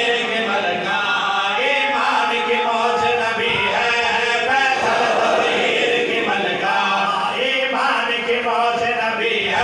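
Several men's voices chanting a Shia mourning lament (nauha) together in unison through microphones and a PA system, in a steady, continuous flow.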